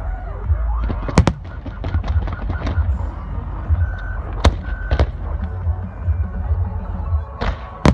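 Aerial fireworks shells bursting: sharp bangs, two in quick succession about a second in, two more around the middle and a loud one near the end, over a continuous low rumble.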